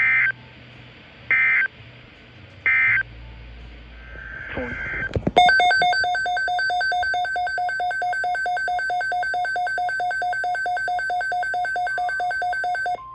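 Three short buzzy digital data bursts of an Emergency Alert System SAME end-of-message code. After a brief swooping noise, a loud electronic alert tone pulses rapidly and evenly for about eight seconds, then cuts off.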